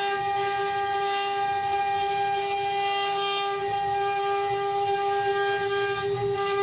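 CNC wood-carving router's spindle running with a steady whine that holds one constant pitch.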